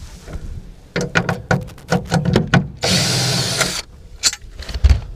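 Cordless drill with a T30 Torx bit backing a bolt out of the truck bed's rail: a string of short clicks and rattles, then the drill runs steadily for about a second about three seconds in, followed by a couple of clicks.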